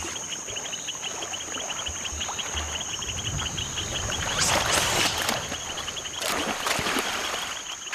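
Insects chirping and trilling steadily in a natural outdoor ambience, with a few louder washes of noise about four and a half and six seconds in.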